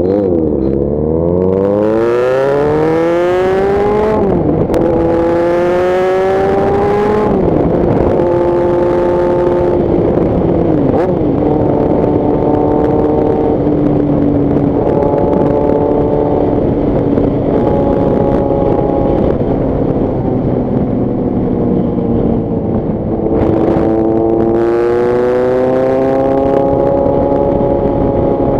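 Kawasaki Z800's inline-four engine pulling hard through the gears. Its pitch rises, then drops sharply at upshifts about four and seven seconds in. It then holds a fairly steady cruising note with small pitch steps, and rises again under acceleration near the end.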